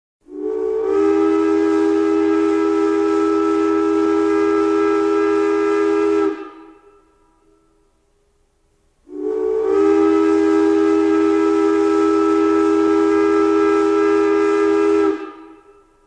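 Out-of-tune three-chime steam whistle of Greenfield Village's locomotive No. 1 'Edison', blown in two long blasts of about six seconds each. Its clashing notes sound together over a hiss of steam. Each blast starts with a brief slightly higher note before settling.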